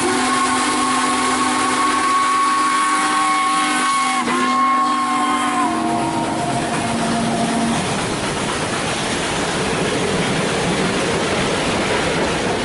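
Texas & Pacific three-chime steam whistle, a shop-built bell on a Nathan five-chime bowl, blowing a long chord on steam with a brief break about four seconds in. The chord trails off over the next few seconds and leaves a steady hiss.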